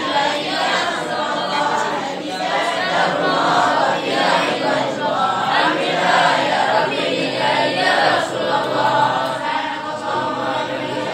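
A group of voices chanting a devotional prayer together in unison, running steadily without a break.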